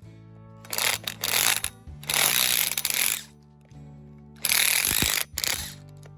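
Impact drill hammering as it backs old bolts out of a wooden anvil stump, in three bursts of about a second each. Background music with steady low notes runs underneath.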